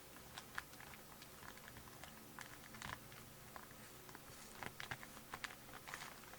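Faint crinkling and clicking of a trading-card pack or box being worked open by hand. The packaging is stuck with strong glue.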